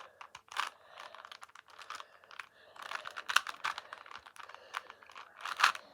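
3x3 Rubik's cube being turned rapidly by hand to scramble it: its plastic layers click and clack in quick, irregular runs, with louder clacks about halfway through and near the end.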